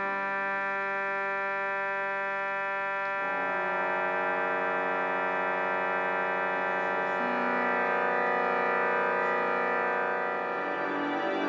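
Organ holding sustained chords that shift to new notes about three seconds in and again about seven seconds in.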